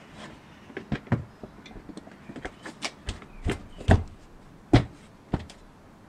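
Plastic engine cover of a VW Golf Mk5 being set on the engine and pushed down onto its mounts: a series of hollow plastic knocks and clicks, the loudest about four and five seconds in.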